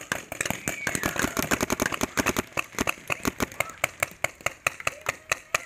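Paintball markers firing rapidly, several sharp pops a second, uneven in spacing and loudness.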